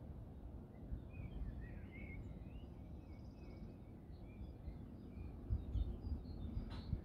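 Faint, distant songbirds chirping and twittering in short scattered notes over a low, steady outdoor rumble, with a few soft thumps and a click near the end.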